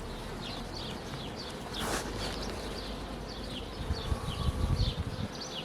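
Carniolan honeybees buzzing steadily around an opened hive during a frame inspection, with many short high chirps repeating throughout. Some low rumbling and knocks come about four to five seconds in.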